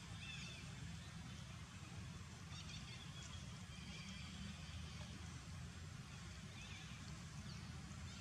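Quiet outdoor ambience: a steady low rumble with a few faint, short, high chirps scattered through it.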